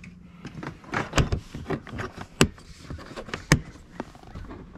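Hard plastic bow hatch lid of a Bonafide SS127 kayak being worked open and shut by hand: a string of sharp clicks and knocks.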